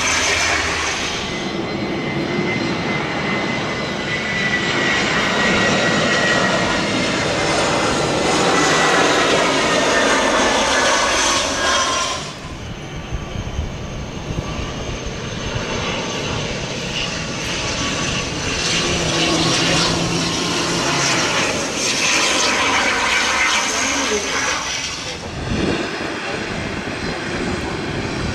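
ATR 72-600 turboprop engines and propellers running, first from an aircraft on the runway with a whine that slowly falls in pitch, then, after an abrupt change about twelve seconds in, from a second ATR 72 on approach with a steady high whine. Near the end it cuts to the jet engines of an Airbus A320-200 on approach.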